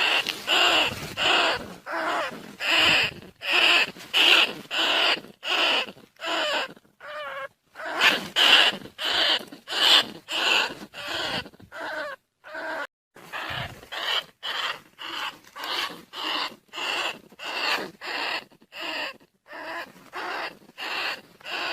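Rat squeals played as a decoy call to lure rice-field rats and bandicoot rats: short, rough squeaks repeated about twice a second, with a couple of brief pauses.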